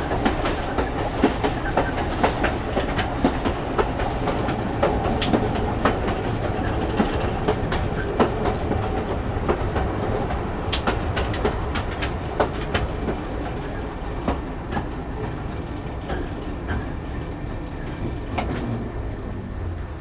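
Metre-gauge train of the Chemins de Fer de Provence running, a steady rumble with irregular clicks of the wheels over rail joints. It grows gradually quieter toward the end.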